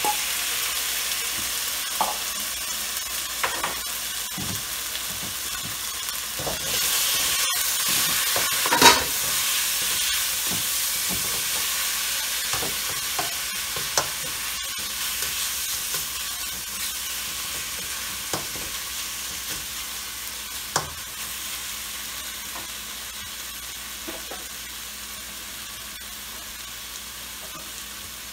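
Sliced marinated beef sizzling in hot oil in a wok, with a metal spatula scraping and knocking against the pan as it is stirred. The sizzle slowly grows quieter over the second half.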